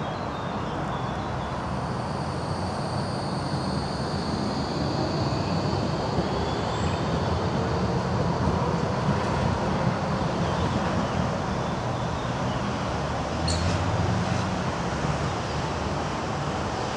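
Tram pulling away round the curve of a turning loop: a steady rumble of wheels and running gear, with a thin, high, steady wheel squeal on the curved track over the first few seconds. A sharp click comes about thirteen seconds in.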